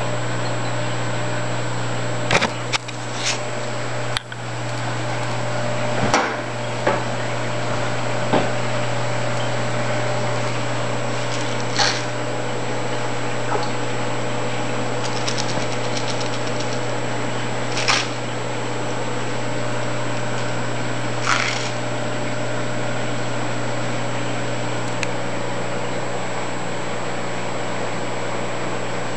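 Steady electrical hum of running aquarium equipment such as sump pumps and lighting, with a low hum and fainter higher tones. About eight sharp clicks and knocks come at irregular intervals over it.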